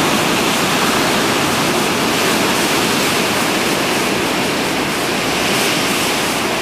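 Heavy surf breaking and foaming over black volcanic rocks at the foot of a cliff: a loud, steady rush of churning white water.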